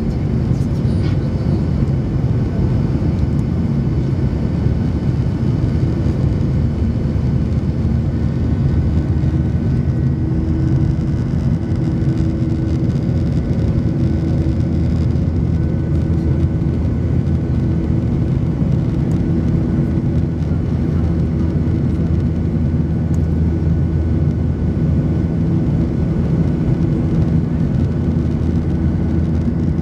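Airbus A310 cabin in the climb after takeoff: the twin turbofan engines and airflow make a loud, steady roar with a few steady hum tones in it.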